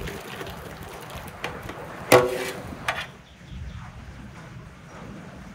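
Cooked cherries and syrup sliding and splashing out of a metal pan into an enamel basin, with a sharp ringing clang of metal on metal or enamel about two seconds in and a smaller knock just after. The pouring stops about three seconds in.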